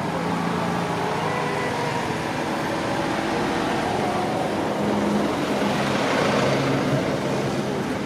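A motor vehicle running close by: a steady engine hum over a haze of road noise.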